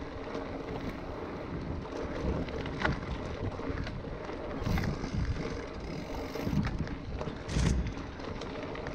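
Mountain bike rolling down a dirt singletrack: tyre and wind noise on the microphone with the bike rattling over the ground and a few sharp knocks from bumps, the loudest about three-quarters of the way through.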